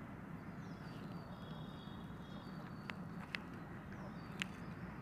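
Faint background hum and hiss with three short faint clicks in the second half, the last about four and a half seconds in.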